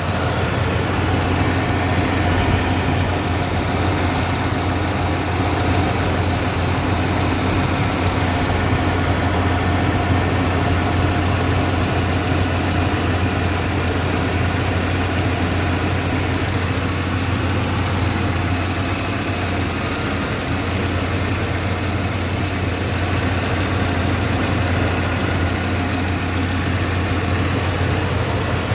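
1995 Ford F-150's 5.0-litre V8 idling steadily with a fast, even ticking over the engine note. The owner hears the tick from the driver's side of the engine and does not yet know its cause.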